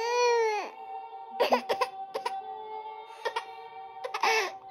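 A toddler crying: one long wail that rises and falls at the start, then short sobs, over a soft lullaby melody that plays from a plush bunny sleep doll. The parent takes the crying to be caused by the song sounding sad to her.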